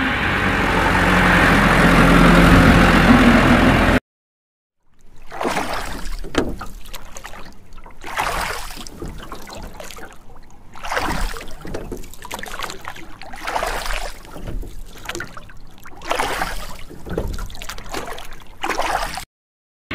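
A steady vehicle engine noise that cuts off abruptly about four seconds in. After a second of silence comes water sloshing and splashing in uneven surges, ending in a sudden cut shortly before the end.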